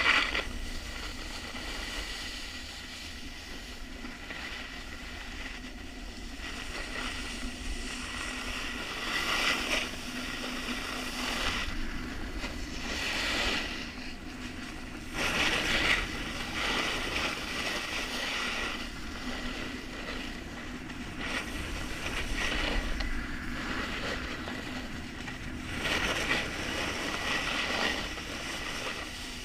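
Snowboard sliding down groomed snow: a steady hiss of the base on the snow that swells into a harder edge scrape every few seconds as the board turns, with wind rushing over the camera microphone.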